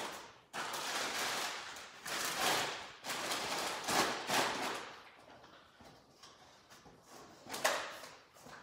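Packaging rustling as hands rummage inside a small cardboard shipping box of snack bags: several crinkly spells in the first half, quieter scattered rustles after, and one sharper crinkle near the end.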